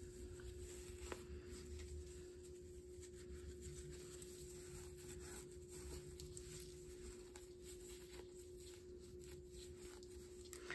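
Faint, light scratching and rubbing with a few soft clicks, over a steady low hum.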